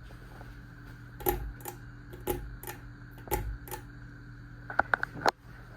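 Sonica flush-mount (hugger) ceiling fan running on low speed, its motor humming steadily. Light clicks come through the hum, paired about twice a second, with a quick run of sharper clicks near the end.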